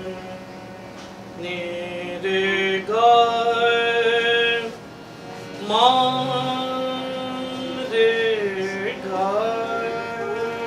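Hindustani classical male vocal alaap in raag Puriya, a night raag of Marwa thaat: long held notes joined by slow slides up and down, over a steady harmonium accompaniment.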